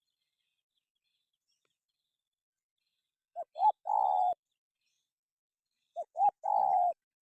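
Spotted dove cooing: two phrases, each of two short coos followed by a longer rolling coo, the first about three seconds in and the second about two and a half seconds later.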